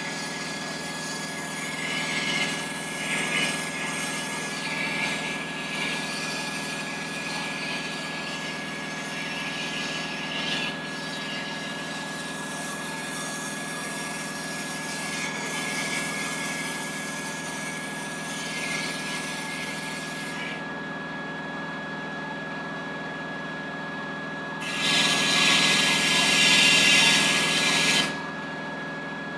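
A power tool's motor running steadily, with a hissing, abrasive noise of work on metal that stops about two-thirds of the way through and comes back louder for a few seconds near the end.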